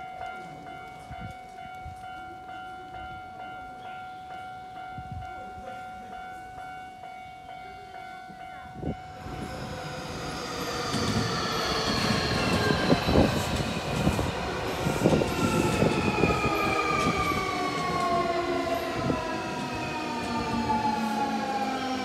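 Japanese level-crossing alarm ringing its repeating electronic tone, then a Nankai electric train running through the crossing about nine seconds in, with wheels knocking on the rails. The train's motors whine in several tones that fall steadily in pitch as it slows.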